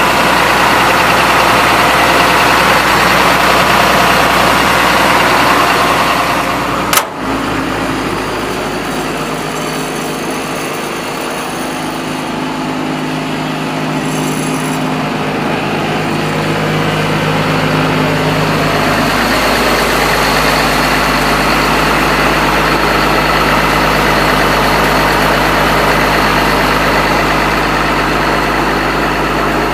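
Komatsu PC200-8MO excavator's diesel engine running steadily. About a quarter of the way in there is a sharp click, and the engine note drops lower and a little quieter, then rises and settles again over the second half.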